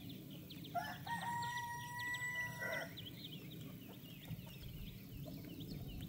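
A rooster crows once: a short lead-in note, then a long held call of about two seconds that drops away at the end. Short high chirps continue throughout.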